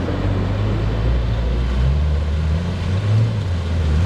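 Engine of a lifted 4WD running steadily under load as it drives through a shallow river, its pitch rising and falling slightly, with water splashing around the wheels.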